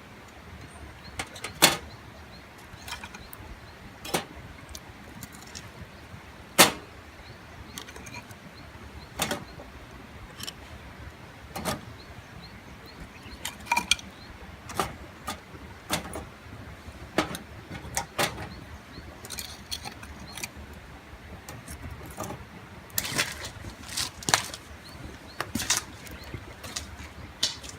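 Campfire being lit and built: irregular sharp snaps and clicks every second or two, with a denser cluster near the end, over a low steady rumble.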